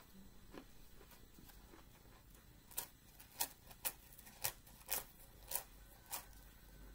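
Matza being bitten and chewed: a run of about seven sharp, crisp crunches, roughly one every half second or so, starting about three seconds in, after a few faint ticks.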